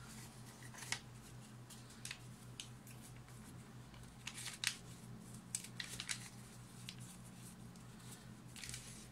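Glossy craft paper rustling and crinkling in short, scattered strokes as a square sheet is folded in half, its corners lined up and the fold pressed down with the fingers. A faint steady low hum lies underneath.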